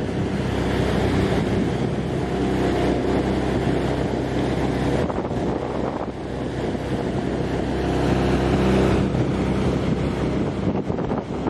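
A boat's diesel engine running flat out at just under 2,000 rpm, a steady drone under heavy wind buffeting on the microphone and water rushing past the hull.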